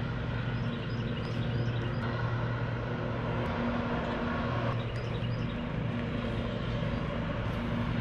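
A motor runs steadily with a low hum, with a few faint light ticks over it.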